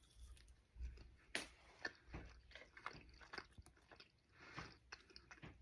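Faint chewing of a cold, fully cooked seasoned chicken breast bite: a scatter of soft, irregular mouth clicks.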